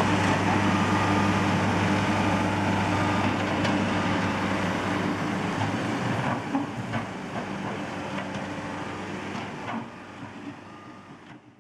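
JCB backhoe loader's diesel engine running steadily, then fading away over the second half, with a few short knocks along the way.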